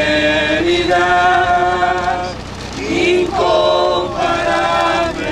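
A church congregation of men and women singing a hymn together in long held notes, with a short break between phrases about halfway through.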